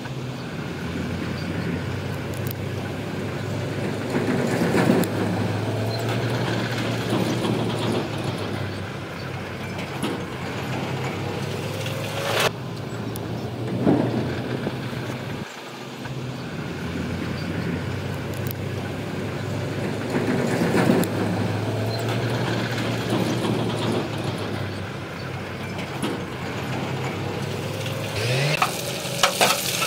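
Crawler bulldozer's diesel engine running steadily with a low hum and occasional clanks. The pitch rises briefly near the end as a rough crackling sound joins in.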